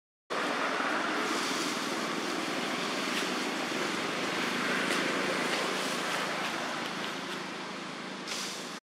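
Steady outdoor rushing noise, even and unbroken, with faint scattered ticks.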